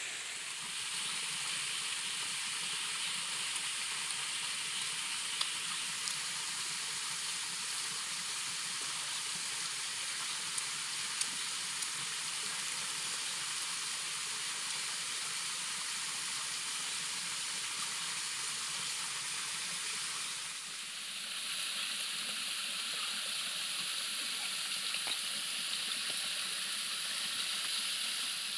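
Steady rushing of a waterfall and stream, an even high hiss with no rhythm; its tone shifts about three quarters of the way through. A few faint clicks sound over it.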